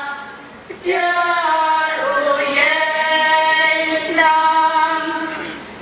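Slow singing in long, held notes, sung phrase by phrase, with a brief pause near the start before the next phrase comes in.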